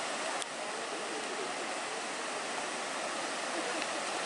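Steady rush of several waterfalls pouring into a lake, with a single short click about half a second in.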